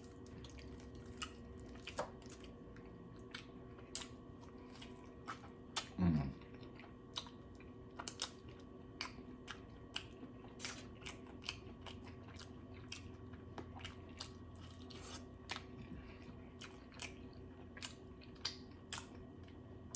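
Close-up chewing and biting while gnawing meat off barbecue rib bones, with many small sharp wet clicks and smacks scattered throughout. A brief low hum of a voice comes about six seconds in.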